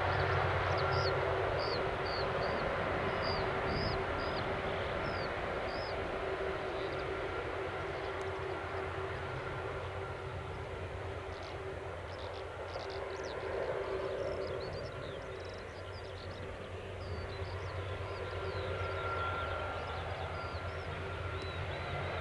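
Airbus A330-200 with Rolls-Royce Trent 700 engines taxiing at low thrust while it turns onto the runway for take-off: a steady jet-engine hum with a constant whine, swelling slightly about 13 seconds in and dipping a little after. Faint high chirps sit over it.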